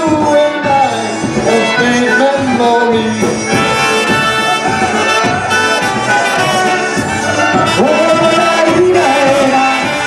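Live polka band playing a polka, with trumpet and another horn leading over a concertina.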